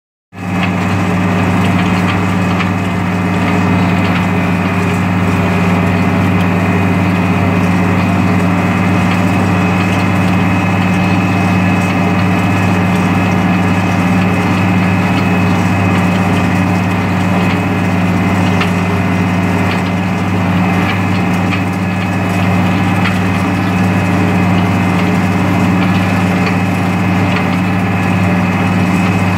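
Steady engine drone of the vehicle towing a ten-wheel hay rake through cut hay, holding an even pace with a deep hum.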